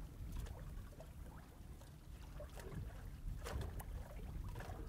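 Wind rumbling on the microphone over light chop lapping at a small boat, with a few faint knocks and splashes.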